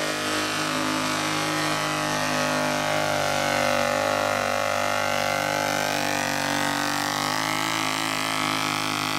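ATV engine running at a steady speed as it tows the pulling sled, with an even engine note and a slight waver in its higher tones midway.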